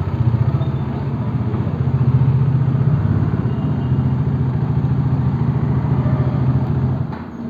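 Bajaj Dominar 400's single-cylinder engine idling with a steady, pulsing low beat, then cutting out near the end.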